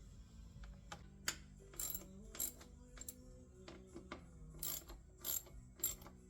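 Hand socket ratchet clicking in about seven short bursts as the door latch actuator screws are tightened down, with background music underneath.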